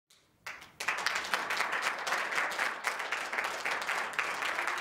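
Audience applauding: a few scattered claps about half a second in, then steady, dense applause from about a second in.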